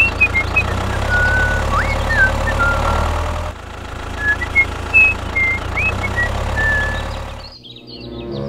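Tractor engine running steadily at idle, with short high chirps over it. The engine sound dips briefly about three and a half seconds in and cuts out near the end.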